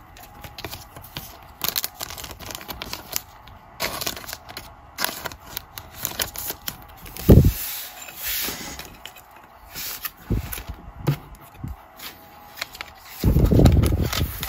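Trading cards being handled and set onto small display stands: scattered crisp clicks, taps and rustles of card and plastic, with a short low thump about seven seconds in and a longer low bump near the end.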